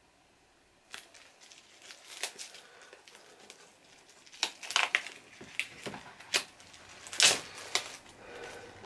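Cellophane shrink-wrap being torn and peeled off a box set by hand, crinkling and crackling in irregular snaps and rustles that start about a second in, the loudest crackle near the end.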